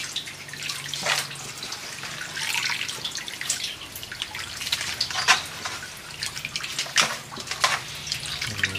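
Coconut milk being squeezed out of grated coconut by hand, liquid splashing and dripping into a bowl in irregular spurts.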